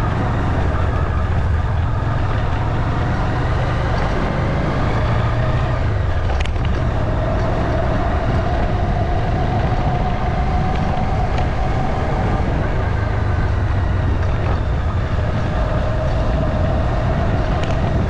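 Steady engine and road noise of a moving vehicle, with a faint engine tone that drifts slowly up and down. A single sharp click about six and a half seconds in.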